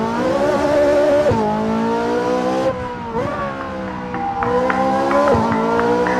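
Car engine accelerating through the gears: the pitch climbs steadily and then drops sharply at each upshift, three times. Music plays faintly underneath.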